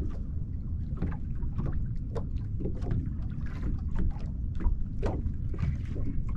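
Small waves slapping and lapping against the hull of a small boat, a few irregular splashy slaps a second over a steady low rumble of wind on the microphone.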